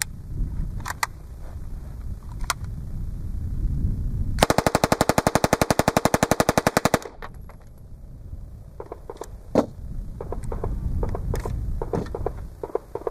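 9mm M-11/9 submachine gun with a MAX-11k upper firing one full-auto burst of about two and a half seconds, starting about four seconds in. Afterwards come scattered metallic clicks and knocks as the gun is handled and set down on the table.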